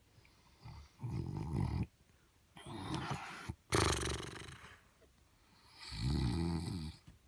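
A man snoring in his sleep: about four snores, each around a second long, with short quiet gaps between them.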